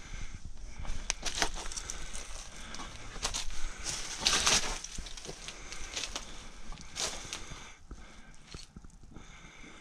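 Footsteps crunching over loose rubble, broken tiles and plaster debris, an uneven run of crunches and clicks, loudest about four and a half seconds in and fading near the end.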